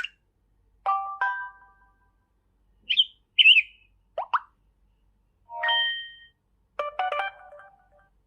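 Samsung Galaxy S4 stock notification sounds played one after another, each short and separated by silence: a two-note chime, a pair of high chirpy blips, quick pitch glides, a short two-tone beep, and a quick run of plucked notes near the end.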